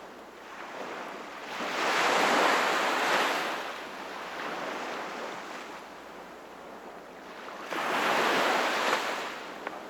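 Sea waves washing onto the shore: one breaks and swells about two seconds in, a softer wash follows, and a second wave breaks near the end.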